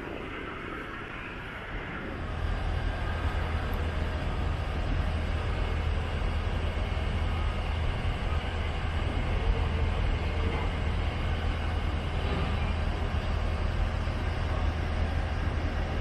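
A steady low mechanical rumble with a constant deep hum sets in about two seconds in and holds, over general outdoor noise.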